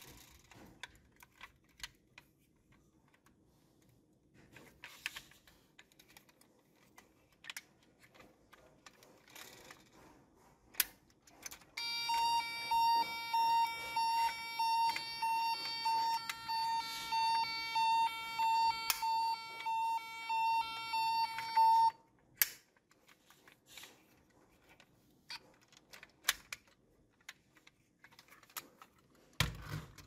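Toy ambulance's battery-powered electronic siren, a steady high beeping tone pulsing about twice a second, set off by pressing the roof light bar; it plays for about ten seconds and cuts off abruptly. Light plastic clicks and taps from handling the toy come before and after it.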